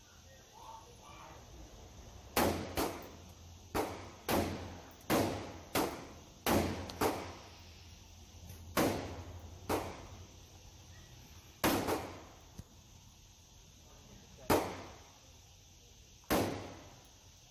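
Rifle shots echoing in an indoor range: about fourteen sharp reports at uneven intervals, some in quick pairs. They come from a CZ Bren 805 rifle firing 55-grain 5.56 mm rounds one at a time, with shots from the neighbouring lane mixed in.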